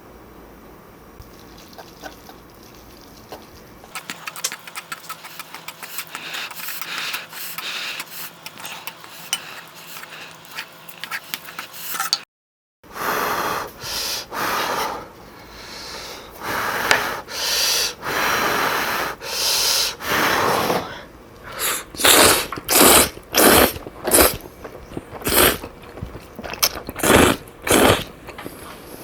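Close-miked eating of Chapagetti black bean noodles. First comes a few seconds of fine sticky crackling as the sauced noodles are handled. Then, after a brief cut, a run of loud slurps, about one every second, growing louder and more regular toward the end.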